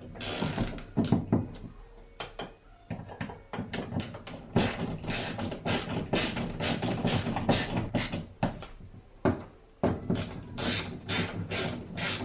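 A screw being driven by hand with a screwdriver through a metal shelf bracket into a wall: a quick run of short grinding clicks with each twist, about three a second, broken by a couple of short pauses.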